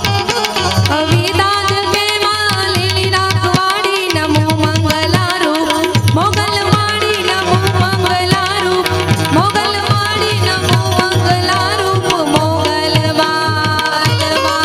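Live Gujarati folk devotional music: two tablas played in a quick, steady rhythm under a harmonium, with a woman singing a wavering melody over them.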